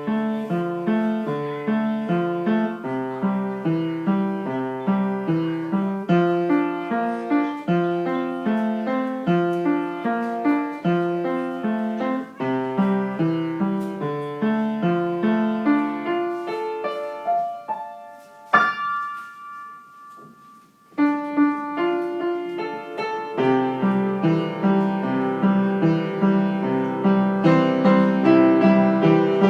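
Piano music: a steady pattern of broken chords. About two-thirds in it thins to a few held notes, then picks up again fuller and louder.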